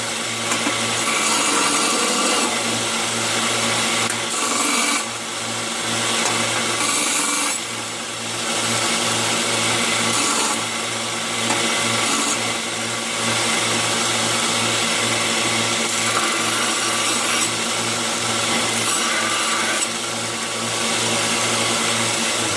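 A power tool running steadily and working steel, its sound swelling and dipping every second or two as the work is pressed on and eased off: cleanup of forged knife blades after hardening and tempering.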